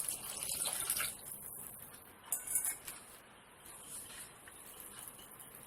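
Water being poured into a bowl of rice and lentils, stopping about a second in, then a couple of light clinks of dishware.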